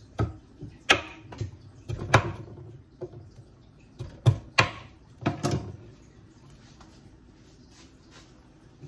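Knife chopping squash on a wooden cutting board: about ten irregular knocks of the blade hitting the board, stopping a little over halfway through.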